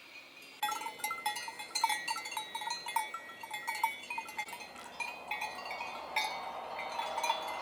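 Several cowbells clanking irregularly, a jumble of ringing strikes at different pitches that starts about half a second in.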